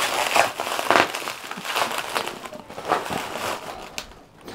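Plastic bubble wrap crinkling and crackling irregularly as it is grabbed and pulled aside by hand, dying down just before the end.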